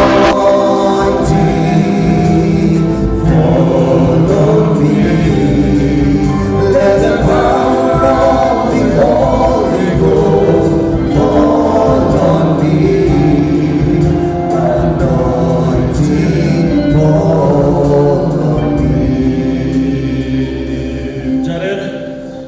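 A choir singing a gospel song over an accompaniment with a steady beat, dying away near the end.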